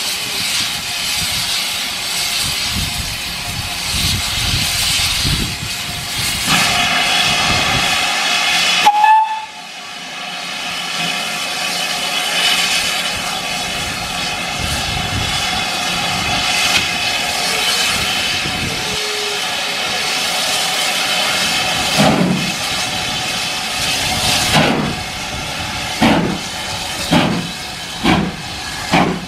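GWR Manor-class 4-6-0 steam locomotive standing with steam hissing steadily, the hiss growing stronger about six seconds in, and a short whistle about nine seconds in. From about twenty-two seconds in, exhaust beats start, slow at first and coming quicker as the engine pulls away with its train.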